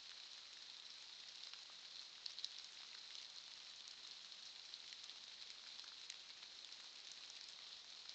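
Near silence: the faint, steady hiss of a trail camera's microphone, with a few faint ticks about two and a half seconds in and again near six seconds.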